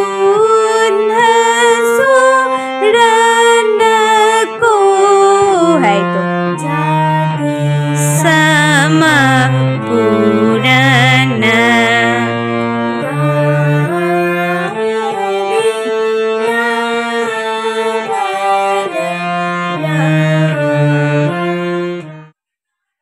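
Harmonium playing a melody of held, reedy notes that change every half second to a second, with lower notes joining from about six seconds in.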